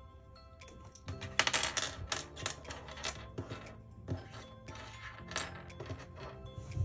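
Irregular clacks and clicks from a Keychron K3 low-profile mechanical keyboard with Gateron brown switches, likely keys being pressed: a quick flurry about a second and a half in, then single strokes every second or so. Background music plays underneath.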